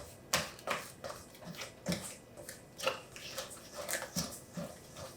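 A fork working melted butter into a flour and brown-sugar crumble mixture in a bowl: irregular scraping and clinking strokes against the bowl, about three a second.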